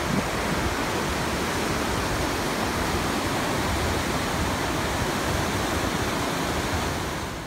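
Fast mountain river rushing over boulders: a steady, even rush of white water that eases off near the end.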